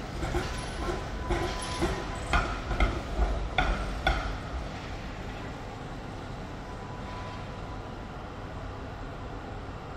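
Melbourne tram's wheels clattering and knocking on the rails as it passes, a run of irregular knocks with a low rumble. The clatter dies away about four and a half seconds in, leaving a steady low city hum.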